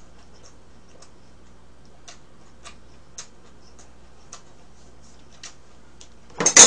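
Faint, scattered clicks about every half second, then near the end a loud, sharp clatter of metal tongs and kitchen scissors being picked up and knocked against the tabletop grill plate.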